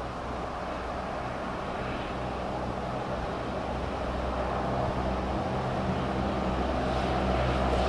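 A distant engine drone with a low, steady hum, growing steadily louder as it approaches.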